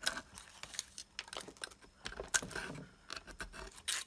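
Irregular light clicks, taps and scrapes of die-cut card jigsaw pieces being pushed out of a cutting die with a small pick tool, the pieces dropping onto the die-cutting machine's magnetic platform.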